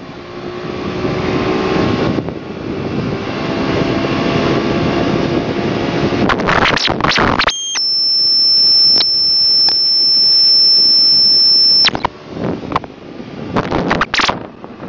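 Hero Honda scooter at speed: engine drone under heavy wind rush on the microphone. About halfway through a steady high-pitched tone takes over for about four seconds, then cuts off. It is followed by uneven rustling and knocking as the camera is moved.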